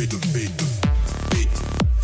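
Electronic dance music with a driving beat and repeated falling bass notes.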